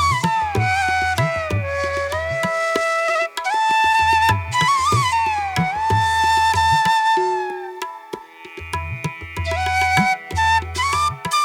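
Background music: a sliding, ornamented melody over repeated hand-drum strokes and a steady drone.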